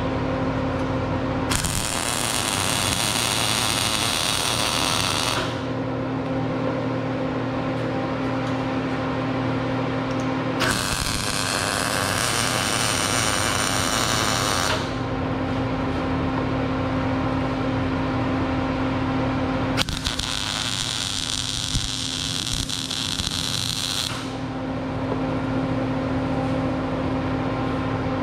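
Welding in three separate bursts of about four seconds each, tacking the steel shelf frame together, over a steady electrical hum.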